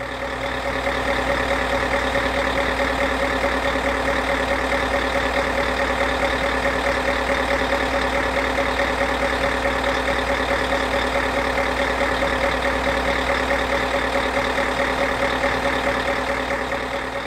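A large engine running steadily at an even pitch, fading in over the first couple of seconds and fading out near the end.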